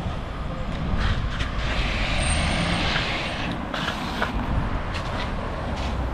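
Street traffic with a heavy vehicle passing close by, over a steady low rumble; a hiss swells about two seconds in and fades a second or so later.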